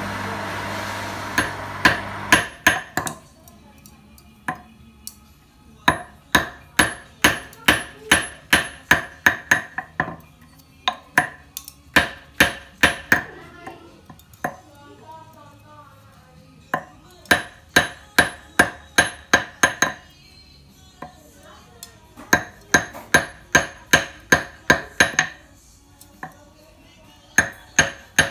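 Hand hammer striking a small silver piece on a steel anvil stake, in runs of ringing metal-on-metal blows, two or three a second, with short pauses between runs. For the first couple of seconds an electric bench motor with a polishing wheel hums steadily.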